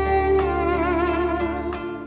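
Background music: a sustained melody with vibrato over a steady low bass.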